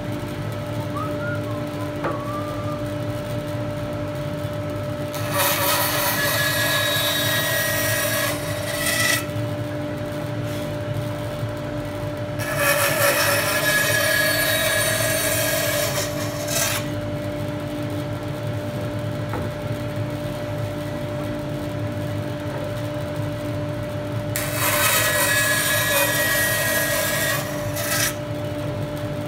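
A woodworking machine runs with a steady hum. Three times a wooden workpiece is fed into the cutter, each pass a louder cutting noise lasting about four seconds, as a tenon is cut.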